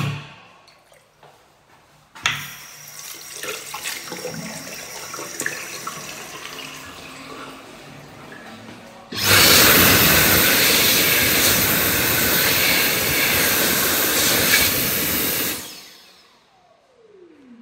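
Water running from a sink tap. About nine seconds in, a Dyson Airblade AB14 hand dryer starts abruptly and blows a loud rush of air with a high steady whine for about six seconds. It then cuts back, and its motor winds down with a falling tone.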